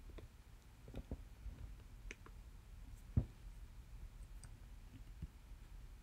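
Scattered clicks of a computer keyboard and mouse, about a dozen short ones at uneven gaps, the loudest about three seconds in.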